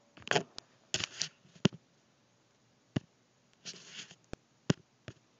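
Handling noise from a phone recording in hand as it is picked up and moved: a series of sharp clicks and knocks with short rustles in between.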